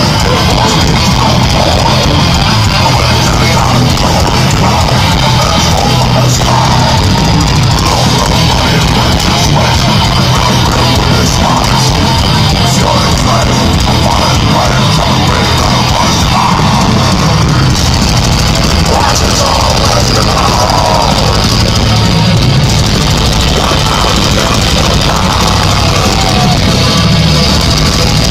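Heavy metal band playing live at full volume, heard from the crowd: distorted electric guitars, drum kit and the singer's harsh vocals, dense and unbroken throughout.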